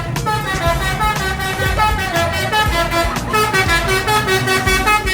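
Bus telolet horn, a multi-tone musical air horn, playing a rapid melody of short stepped notes over the low rumble of the bus's engine.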